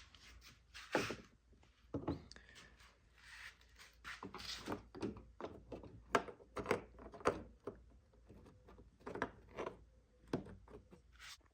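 Scattered plastic clicks and knocks of a window switch bezel being pried up with a flathead screwdriver and handled on a car's door panel, with brief scraping of plastic in between.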